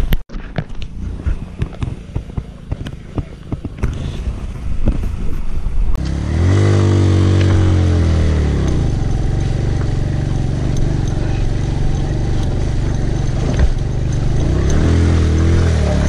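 Motorcycle engine being ridden hard over a rough rocky track, with stones clattering and scraping under the tyres during the first few seconds. About six seconds in, the engine revs up and keeps pulling steadily under load, then revs up again near the end.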